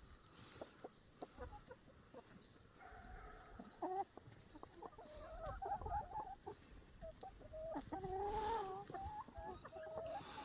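A flock of chickens clucking, with several drawn-out, wavering calls in the second half and small scattered taps and clicks.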